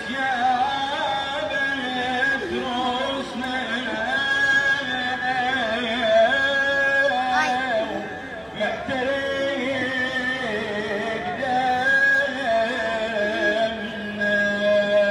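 A voice singing a slow mourning lament in Middle Eastern style, with long held notes that waver and turn in ornamented runs.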